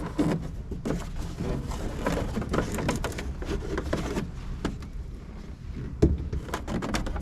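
Plastic control console and trim panel being worked loose by hand in a tractor cab: scattered clicks, rattles and scrapes of plastic, with one sharp knock about six seconds in.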